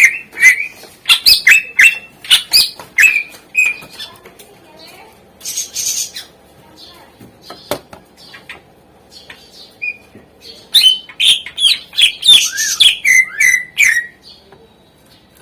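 Cucak ijo (green leafbird) singing in rapid bursts of loud, sharp, sweeping whistles and chattering notes. The song eases to scattered calls in the middle, then comes back in a second dense burst near the end.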